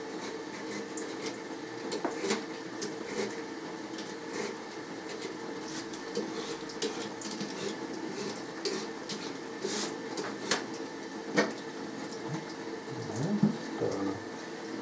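Hand-held vegetable peeler scraping the skin off a raw potato held on screws in a wooden board, with irregular light scrapes and clicks. A couple of louder knocks come about two-thirds of the way through, over a steady low hum.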